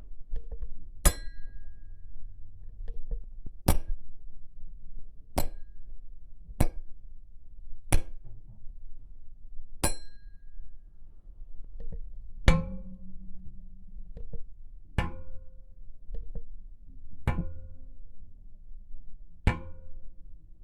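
A string of about ten separate sharp metallic clanks, one every one to two and a half seconds, each with a brief ringing tone after the hit.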